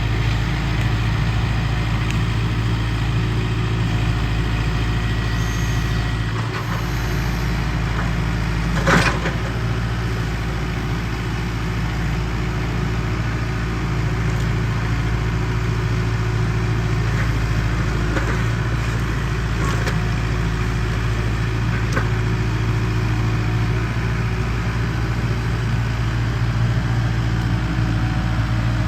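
Kubota M7060D tractor's four-cylinder diesel engine running steadily, with a sharp knock about nine seconds in and a few fainter knocks later, as from the grapple rake working through brush.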